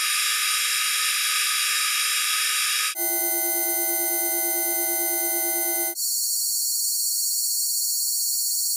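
Three synthesized chords of many steady sine tones, each lasting about three seconds and switching abruptly from one to the next: the atomic emission spectra of magnesium, aluminium and silicon, their light frequencies lowered ten octaves into sound. The first and last chords sit mostly high, while the middle one (aluminium) has a strong lower tone.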